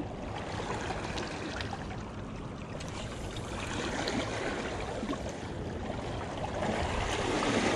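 Seawater washing and gurgling against the rocks of a jetty, a steady noise with no distinct events.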